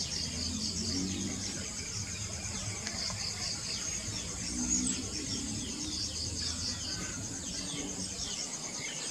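A steady, high-pitched insect chorus, pulsing rapidly, with short falling chirps repeating over it.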